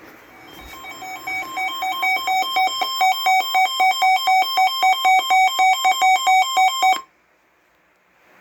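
Weather alert radio's electronic alarm sounding for a severe thunderstorm warning: a pulsing beep at about four beeps a second that grows louder over the first two seconds, then cuts off suddenly about seven seconds in.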